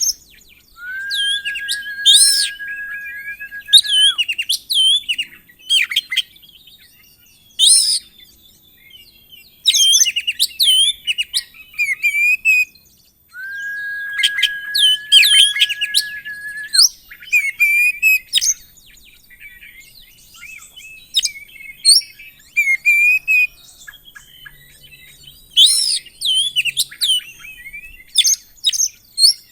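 Oriental magpie-robin (kacer) in full song: a busy run of loud, varied chirps, sharp sweeping notes and trills, mixed with other song phrases. Two long steady whistles are held for about three seconds each, one starting about a second in and one near the middle.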